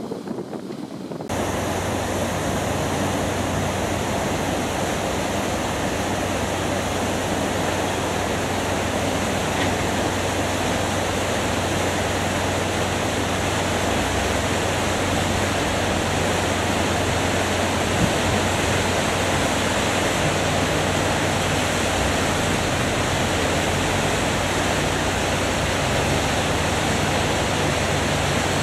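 Steady rushing of river water, starting abruptly about a second in, with a low steady machine hum beneath it.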